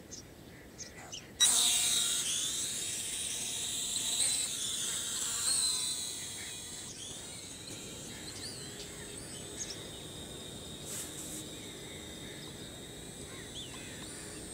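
Eachine E58 mini quadcopter's motors starting suddenly about a second and a half in with a high buzzing whine. The pitch wavers as the drone lifts off, then settles into a steady, quieter buzz as it flies.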